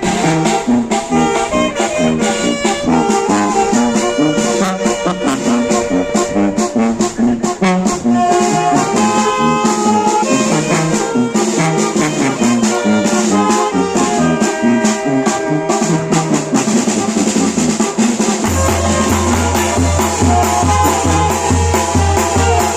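Oaxacan village brass band playing a lively tune, with trumpets, trombones and drums. A heavy low beat comes in near the end.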